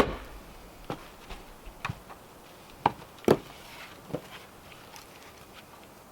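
Irregular knocks and thumps from carpentry work on timber: about eight separate strikes in the first four seconds, the loudest at the start and about three seconds in, then quieter.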